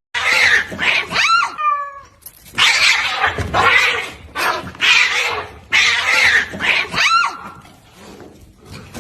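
An animal giving repeated short hissing bursts mixed with brief wailing cries that bend up and down in pitch, fading toward the end.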